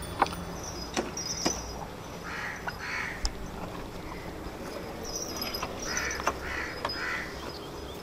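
Birds calling: short harsh calls in twos and threes, with higher chirps in between, and scattered sharp knocks.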